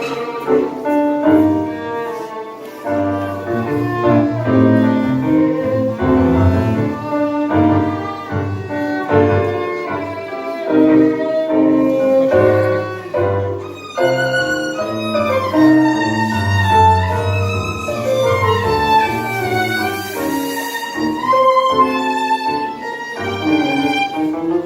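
Tango music: a violin melody over piano and bowed bass strings, with a marked pulsing beat in the bass. From about halfway through, the violin line comes to the fore, running up and down.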